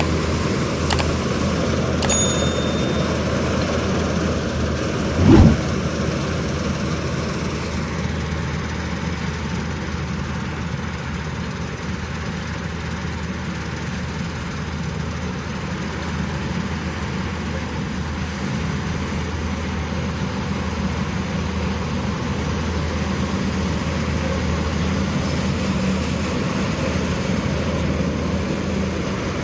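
Combine harvester engine running steadily, a continuous low drone, with one brief loud thump about five seconds in.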